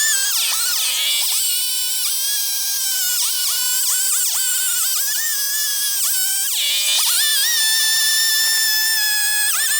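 Chainsaw cutting into a cedar log, its pitch dropping again and again as the chain bogs down under load and then recovering to a steady high whine. The longest steady stretch is in the second half.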